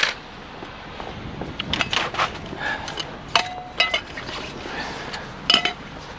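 Pieces of scrap metal clinking and clanking together as they are handled, with a string of sharp knocks. Two of the strikes, past the middle and near the end, ring briefly.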